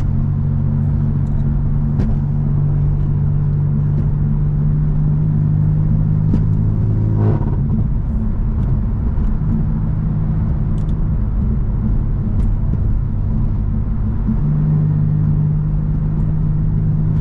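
BMW M4 (F82) S55 twin-turbo inline-six with an aftermarket mid pipe, running steadily while driving, with a low exhaust drone heard from inside the cabin. Its note changes about seven seconds in and again near the end.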